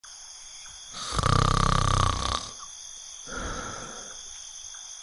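A person snoring: a loud, rattling snore on the in-breath about a second in, lasting over a second, then a quieter breath out about three seconds in.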